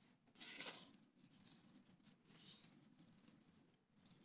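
Dry leaf litter and sticks rustling and rattling in several irregular bursts, the loudest about half a second in.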